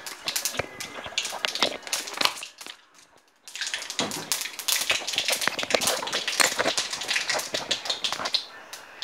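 Mustard seeds spluttering in hot oil in a wok: a dense crackle of small, quick pops. The crackling drops out briefly about three seconds in, then resumes.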